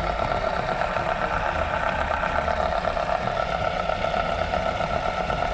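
Homemade Bedini motor running: its magnet rotor spinning steadily past the pulsed drive coil, giving an even whirring hum with a high tone over it.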